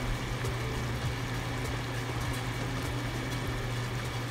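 Pot of chicken and cabbage broth simmering on the stove: a soft, steady bubbling over a constant low hum.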